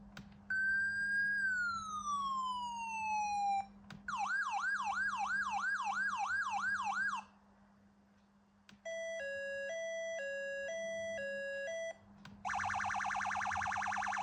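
Standby Group MCS-32 electronic siren stepping through its tones, each about three seconds long with short gaps between: first a single sweep that rises briefly and then falls slowly, then a fast repeating whoop about three times a second, then two notes alternating high and low, each held about half a second, then a very rapid warble that is still going at the end.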